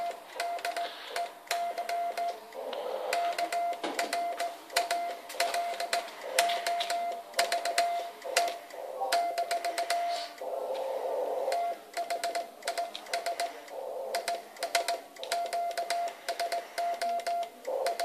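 Morse code sent by hand on a homemade key: the transceiver's sidetone beeps at one steady pitch in short dots and longer dashes, and the key's contacts click sharply with each stroke.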